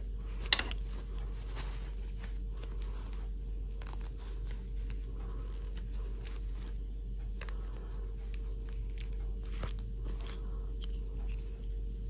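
Close handling noise of a cloth doll skirt being pulled onto a plastic fashion doll's body: irregular fabric rustling and small plastic clicks, with one sharper click about half a second in, over a steady low hum.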